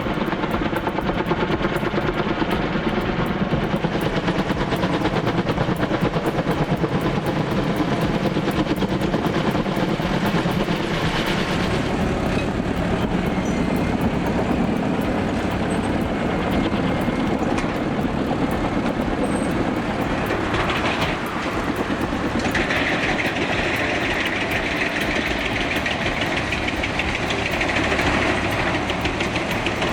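A heavy engine running steadily with a rapid pulsing throughout. About 22 seconds in, a higher whine joins it.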